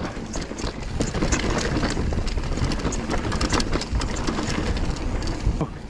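Mountain bike descending a rough, rocky downhill trail at speed: a steady rumble from the tyres and frame, broken by many sharp knocks and clatters as the bike rattles over rocks and roots.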